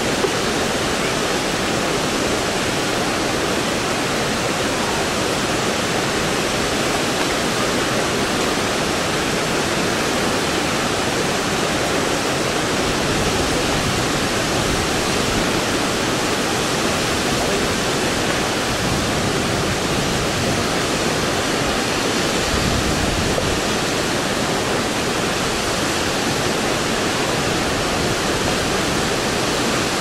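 Water rushing over a wide, stepped river waterfall of low rock ledges: a steady, even roar of falling water.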